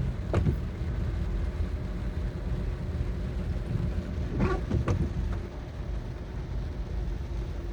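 Steady rumble of heavy rain and road traffic in a city street, with a few brief sharp sounds about half a second in and again around four and a half and five seconds, and a faint steady hum in the second half.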